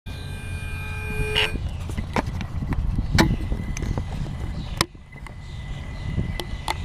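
A 3DR Solo drone being handled, its motors not running: low rumbling from the grip on the camera, with sharp clicks and knocks about one and a half, two, three and nearly five seconds in. A steady electronic tone of several pitches sounds at the start and cuts off after about a second and a half.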